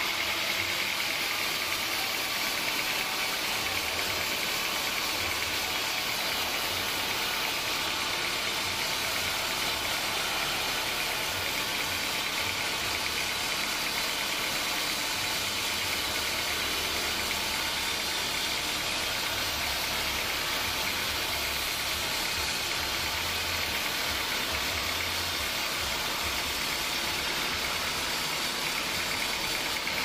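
Band sawmill running steadily, its blade sawing lengthwise through a large hardwood log on the carriage: an even, unbroken machine noise with a high saw hiss.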